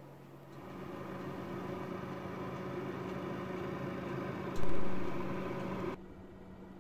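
Electric oven running with a steady hum. A sudden low thump comes about four and a half seconds in, then the hum drops off abruptly near the end.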